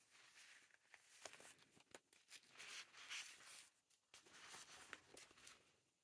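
Faint rustling of paper and paper napkins being handled and laid down on a table, in irregular soft swishes with a few light ticks.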